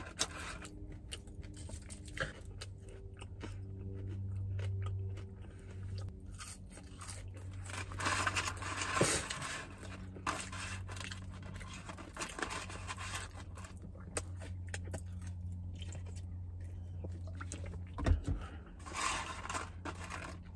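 A person chewing and crunching food close to the microphone, with scattered crunches and mouth sounds, louder bursts about eight seconds in and near the end. A steady low hum runs underneath.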